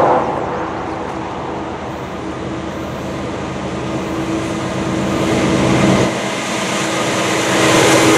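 Diesel locomotives of a freight train approaching, led by a GE ES44DC whose engine hum grows steadily louder, loudest near the end as the lead unit draws level.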